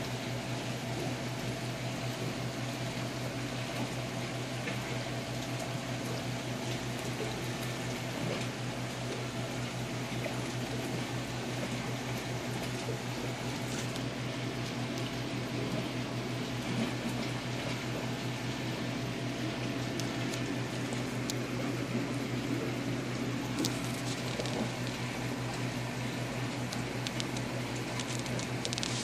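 Stock-tank filter pump humming steadily, with water trickling and splashing into the tank. A few faint ticks come near the end.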